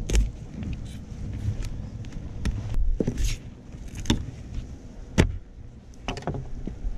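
Fillet knife cutting through a mutton snapper on a plastic cutting board, with scraping and about six sharp knocks of the knife and fish against the board, over a steady low rumble.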